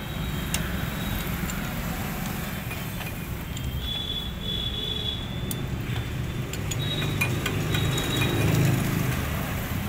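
Metal clinks and ticks of a 19 mm socket wrench working the clutch hub nut on a Bajaj Boxer motorcycle's clutch as the nut is tightened, with two brief high squeaks, over a steady low rumble.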